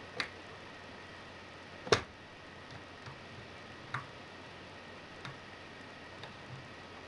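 Lock pick and tension wrench working the pins of a brass euro profile cylinder with trap pins and strong springs: a few sharp metallic clicks at irregular intervals, the loudest about two seconds in.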